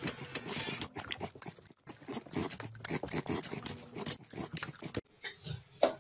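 A dog snuffling and mouthing at a hand held to its face, close to the microphone: a rapid, irregular run of sniffs, smacks and clicks that cuts off suddenly about five seconds in.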